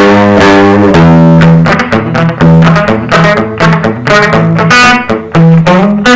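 Electric guitar on its bridge humbucker (an Epiphone SG Pro pickup in a Squier Stratocaster) played clean through a Peavey Delta Blues combo with a JBL speaker: a twangy run of picked notes, a longer low note at first, then quicker notes.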